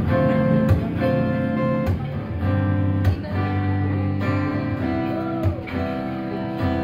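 Acoustic guitar strumming chords as a song's intro, each strum ringing on into the next.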